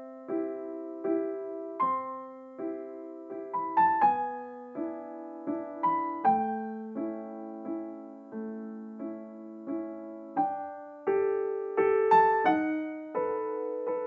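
Gentle piano background music: single notes and soft chords struck at an unhurried, even pace, each one fading away before the next.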